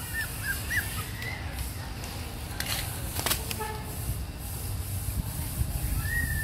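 Puppies feeding at a metal pan of rice porridge: a few short high squeaks in the first second, two sharp clicks midway, and one longer thin whine near the end, over a steady low rumble.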